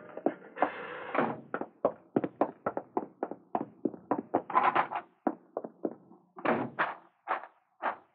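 Footsteps walking at a steady pace, about three steps a second, then slower, more widely spaced steps in the last couple of seconds.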